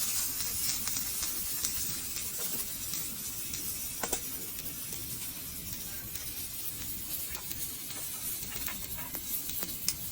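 Wood campfire burning: a steady hiss with scattered small crackles and pops, one louder pop about four seconds in.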